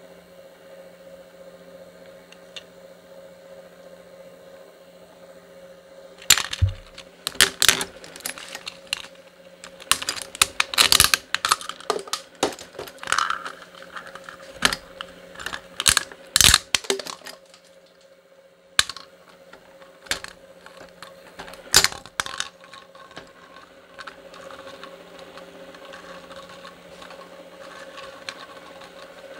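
Twin-shaft shredder running with a steady hum while its steel cutters crunch a small plastic toy truck, in a long run of sharp cracks and snaps from about six seconds in until about twenty-two seconds. After that it runs on with only scattered light clicks.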